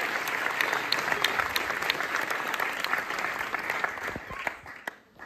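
Theatre audience and cast applauding, a dense patter of many hands that dies away about four seconds in to a few scattered claps.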